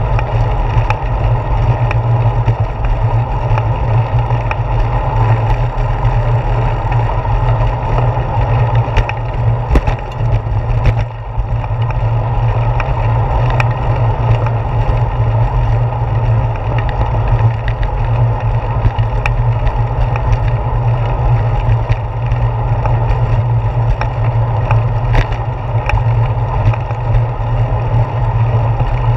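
Steady low rumble of wind and road vibration picked up by a handlebar-mounted GoPro Hero 4 on a bicycle rolling along a concrete path, with scattered sharp clicks and knocks.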